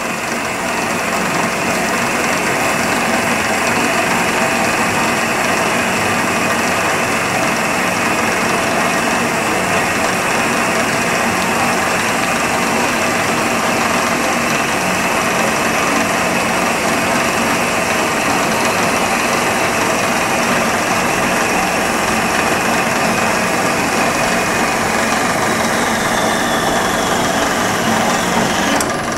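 Johnson Model J horizontal band saw running under its 3/4 hp motor, its blade sawing steadily through a round metal bar held in the vise. Near the end a faint falling whine appears and the sound drops off.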